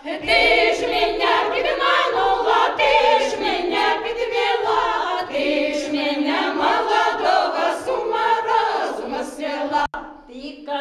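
A women's choir of elderly singers singing a Ukrainian folk song together, with a sudden short break near the end.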